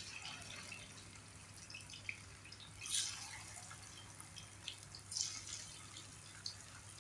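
Marinated chicken pieces deep-frying in hot oil in a kadhai: a faint steady sizzle with scattered crackles, and louder spattering bursts about three seconds in and again about five seconds in.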